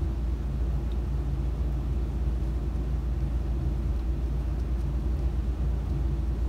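Steady low background rumble with a faint hum, even throughout and with no distinct events.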